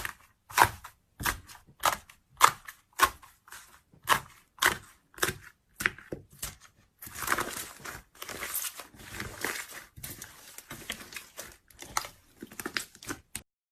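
Sharp, crisp crunches close to the microphone, about one or two a second, giving way about halfway through to a denser run of crackling and crunching.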